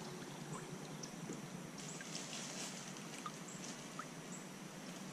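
Water trickling and lapping lightly around a kayak, with a slightly louder patch of splashing about two seconds in.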